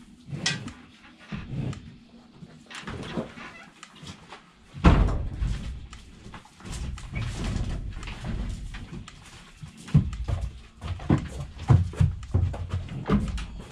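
Knocks and clunks of wooden barn gates and stall boards, the loudest about five seconds in, followed by the thuds of a mini Jersey cow's hooves as she walks up the rubber-matted wooden ramp into the milking stall.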